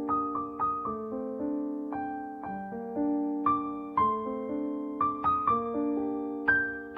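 Background music: a slow piano melody over held chords, each note struck and left to fade.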